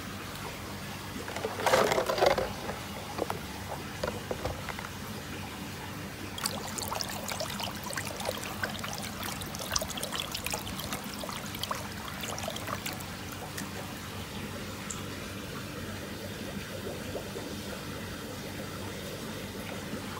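Water sloshing and splashing in a shrimp-nursery tank as a hand stirs among the black tiger shrimp postlarvae, with a louder splash about two seconds in and patchy crackling splashes in the middle, over a low steady hum.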